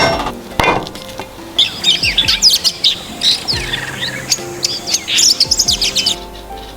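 Small birds chirping and twittering in a busy run of short, quick calls that starts about a second and a half in and stops about six seconds in, over soft background music.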